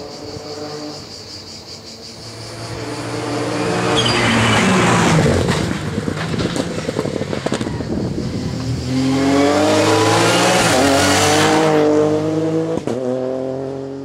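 Ford Fiesta Rally4 rally car with its 1.0-litre three-cylinder turbo engine at full throttle: it comes on loud about four seconds in with the pitch falling as it passes, then accelerates hard out of a corner with the revs climbing, and drops away near the end.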